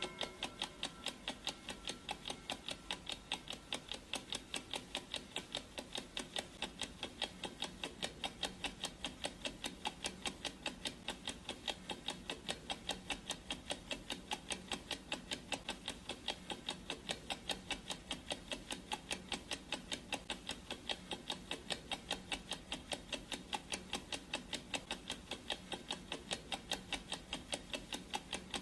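Clock ticking sound effect of a countdown timer: an even, unbroken run of sharp ticks, a few each second.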